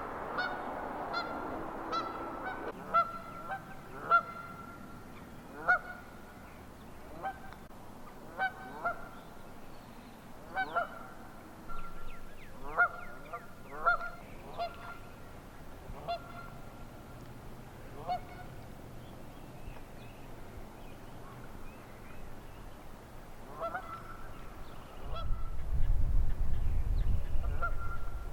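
Canada geese honking, with many short calls at an irregular pace, some overlapping. A loud low rumble comes in near the end.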